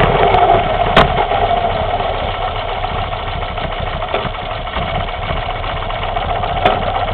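Moto Guzzi 850 Le Mans Mk2's air-cooled V-twin dropping in loudness as the bike slows to a stop, then idling steadily. A sharp click about a second in and another near the end.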